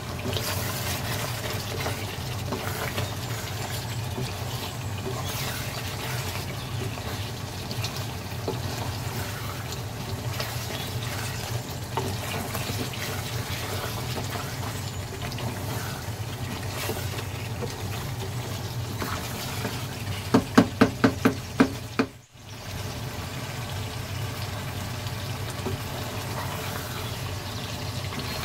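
Beef curry bubbling and sizzling as it simmers in the pot, over a steady low hum. About two-thirds of the way in, a quick run of about seven loud short pitched pulses, about five a second, cuts through, and the sound drops out for a moment just after.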